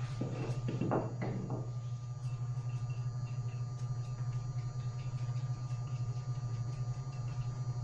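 A few short knocks and scrapes in the first second and a half, then faint ticks, over a steady low hum.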